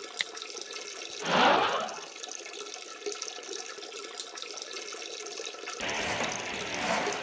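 Water running steadily, as from a bathroom tap or toilet, with faint electronic bleeps from a phone. About a second and a half in, a loud falling whoosh, and from about six seconds in a louder, fuller rush of water.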